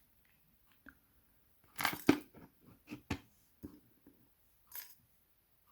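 Small metal clicks and taps of a tool working against the parts of a Mul-T-Lock Integrator dimple lock cylinder as it is taken apart. The clicks are irregular, with the loudest cluster about two seconds in.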